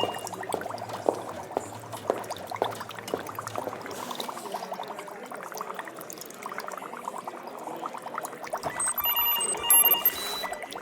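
Laboratory ambience: liquid bubbling in a steady run of irregular small pops. Near the end a pattern of electronic beeps from lab equipment starts up, with a brief hiss just before the end.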